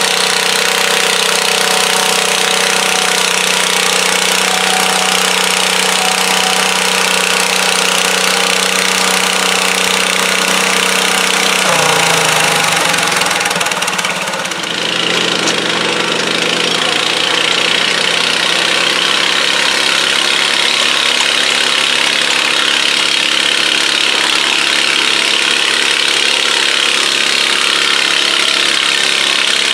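Garden pulling tractor engines running loud and steady. About twelve seconds in, one engine's pitch slides down as it is throttled back, the level dips briefly, and then an engine runs steadily again at a different pitch.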